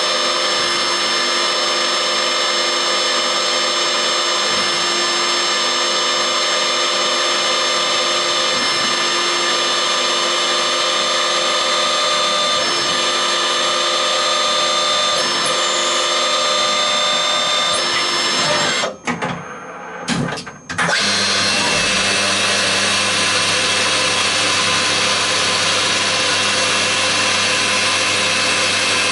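EMCO E-25 TCM CNC lathe with live tooling running steadily, with a whine of several tones over a hiss, while a small axial drill works the end face of a turned part. About two-thirds through, the sound drops out for a couple of seconds as the tooling changes. It then resumes with a deeper hum as a radial milling tool is brought to the part.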